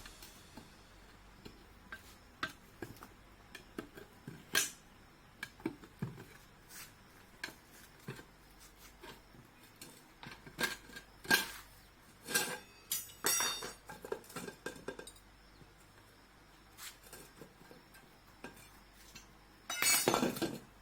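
Scattered metallic clinks and knocks of work on a scooter's front wheel while its tyre is being removed, busiest about halfway through, with a louder noisy burst lasting about a second near the end.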